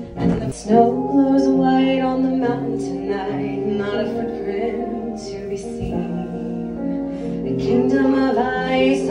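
Music with a woman singing over a backing track of sustained bass notes.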